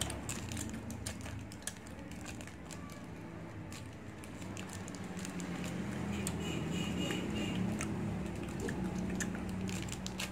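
Close-up eating sounds: scattered crunches, clicks and crackles of chocolate snacks being chewed and a plastic snack wrapper being handled, over a low steady hum.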